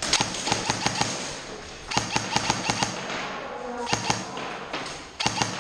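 Airsoft guns firing several short, rapid bursts of shots.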